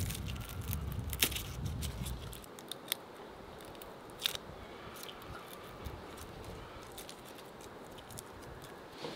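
Garlic being peeled: dry papery skins crackling and a kitchen knife clicking against the cloves, with a few sharp clicks scattered through. A low rumble of hands working on the wooden board fades out about two and a half seconds in.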